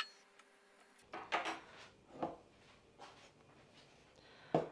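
Kitchen handling sounds on a wooden worktop: a sharp click, then a few scattered soft knocks and rubs, with a sharper knock near the end as a glass bowl of raw lamb chops is handled.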